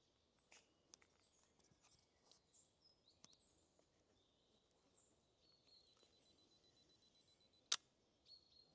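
Near silence with faint bird chirps, then one sharp click near the end: the Nikon D700's shutter firing for the next frame.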